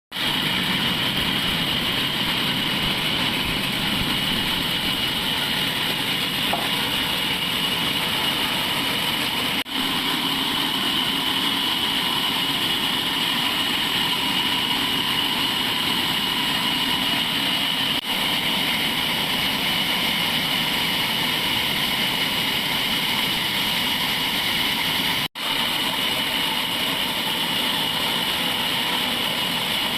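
Sawmill machinery running steadily: a continuous mechanical noise with a high whine, breaking off for a moment twice.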